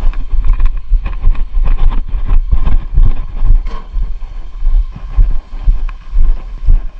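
Wind buffeting the microphone: a loud, uneven low rumble that keeps surging and dropping.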